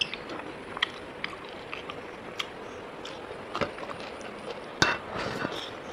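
Eating sounds from a meal of rice and pork: a handful of light clicks and clinks against a plate, the loudest about five seconds in.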